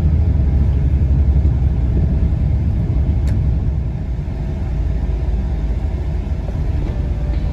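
Steady low rumble of a Boeing 777-200ER heard inside the cabin, from engine and airframe noise, easing slightly about halfway through.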